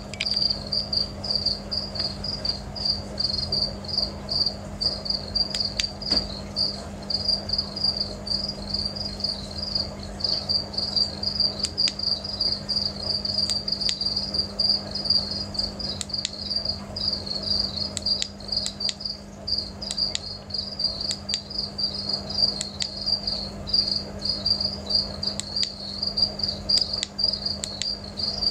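Crickets chirping in a steady, high, pulsing trill, with a low steady hum underneath and a few faint clicks.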